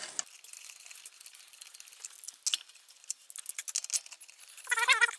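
Scattered light metallic clicks and clinks of small metal parts being handled, with a short wavering pitched sound near the end.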